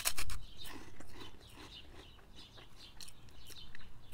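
A bite into a crunchy puffed snack stick, with a loud crunch right at the start, then open-mouthed chewing, a run of small crackles that slowly grow quieter.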